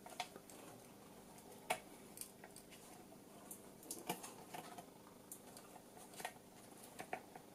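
Faint handling noises: scattered light clicks and rustles as the stacked circuit boards and flexible ribbon cables of a Javelin missile guidance section are moved in the hands, over a low steady hum.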